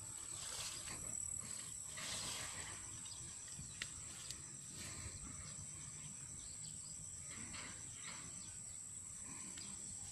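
A steady, high-pitched insect drone runs throughout, with a few soft rustling swishes.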